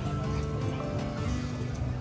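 Music playing: held notes over a heavy bass.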